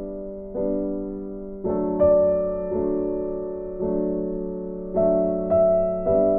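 Background music: a soft keyboard or electric piano playing slow, sustained chords, a new chord struck about once a second and left to fade.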